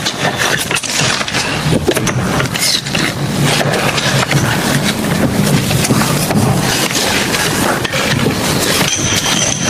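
Steel tank track links clanking and scraping as they are levered with pry bars, many short metallic knocks over a steady low rumble.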